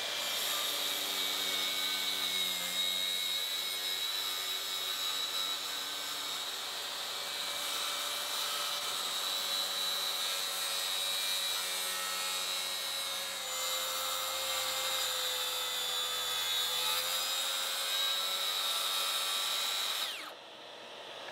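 Makita 36-volt cordless track saw cutting through 3/4-inch plywood along its guide rail at full blade depth: a steady high whine with cutting noise, which stops sharply near the end as the cut is finished.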